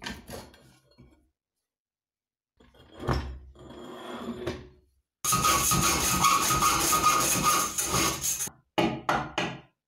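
A few clunks and scrapes of heavy steel pieces being handled, then, from about halfway in, a hand file rasping hard across a steel plate clamped in a vise, the plate ringing with a steady tone under it. The filing stops briefly and ends in three short strokes.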